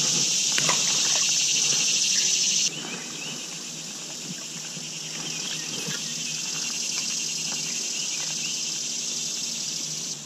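Steady high-pitched chorus of summer insects, dropping suddenly in level about two and a half seconds in and carrying on more quietly. A few faint clicks sound in the first second or so.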